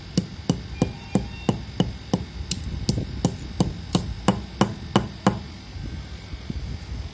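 A metal pestle pounding dry lumps of multani mitti (Fuller's earth clay), crushing them with sharp, crunching strikes about three a second; the strikes stop about five seconds in.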